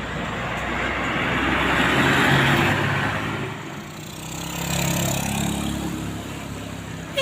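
Road traffic passing close by, two vehicle pass-bys: the engine and tyre noise swells to a peak about two seconds in, dips, and swells again around five seconds in.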